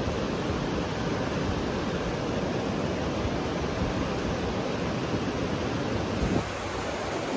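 Rushing river rapids: a steady, even rush of white water, stepping down to a slightly quieter rush about six seconds in.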